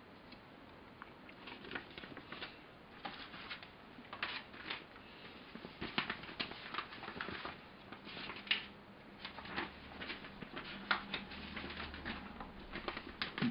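Paper and plastic bags rustling and crinkling as model-kit sheets and bagged sprues are handled in a cardboard box: quiet, irregular small clicks and crackles.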